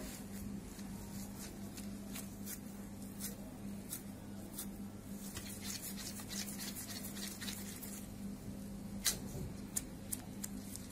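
Gloved hands shaping minced-meat köfte mixture into balls and patties: faint squishing and rubbing of meat and thin plastic gloves, with scattered small clicks over a steady low hum.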